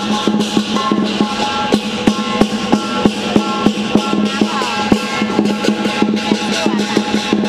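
Music with a fast, steady drumbeat over a held low tone.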